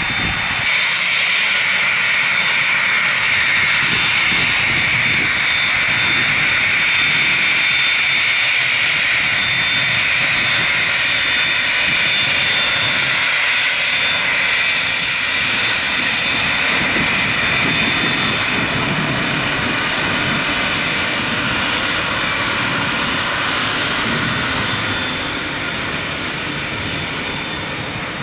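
Turbofan engines of a twin-engine business jet taxiing: a steady, loud high-pitched whine over a deeper rumble, fading a little near the end as the jet moves off.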